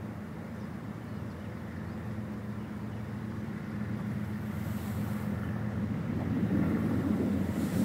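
Diesel locomotive engines of an approaching freight train, a steady low drone growing louder. Brief gusts of wind on the microphone about halfway through and near the end.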